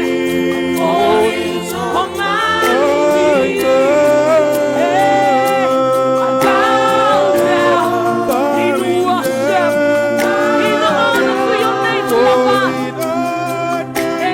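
Worship team singing a slow gospel worship song: voices hold and slide between long notes over steady sustained chords.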